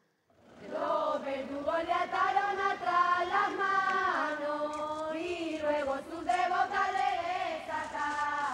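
A group of voices singing a chant-like tune together, starting about half a second in.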